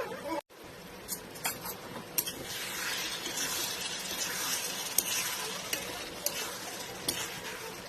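Food sizzling in a hot pan while it is stirred, with scattered sharp clicks of the spatula against the pan. The sizzle grows louder about two seconds in.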